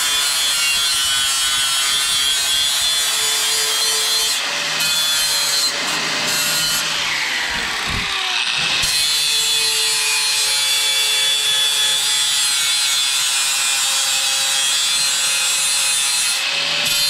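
Milwaukee corded angle grinder with a sanding disc grinding the steel edge of a shovel blade to sharpen it: a steady motor whine under the rasp of the disc on the metal. About eight seconds in, the grinder is lifted off the blade and its pitch dips and comes back before grinding resumes.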